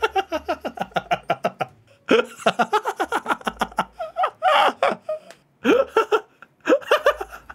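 A man laughing hard in several rapid ha-ha bursts, with short pauses for breath between them.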